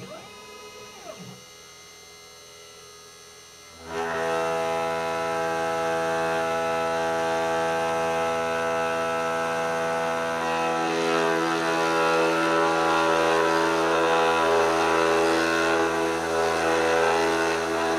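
Spindle motor of a CNC 2417T desktop router starting about four seconds in, then running with a steady whine while the engraving bit works a plastic block. Before it starts, a faint hum and a short sliding tone from the machine moving into position.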